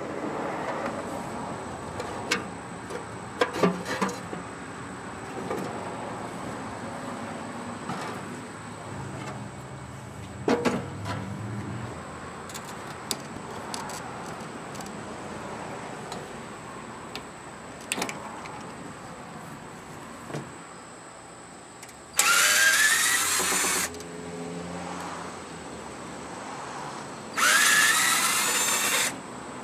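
A power drill run in two short bursts of about a second and a half, its pitch rising as it spins up; they are the loudest sounds. Before them come scattered knocks and clanks of metal grill parts being handled.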